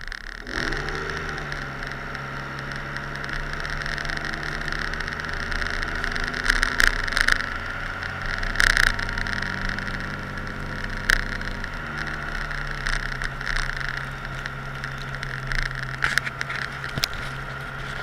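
Cummins straight-six turbo-diesel of a Dodge Ram 2500 running as the pickup drives with its snow plow. The engine note rises about half a second in and drops about twelve seconds in, with scattered sharp clicks and knocks.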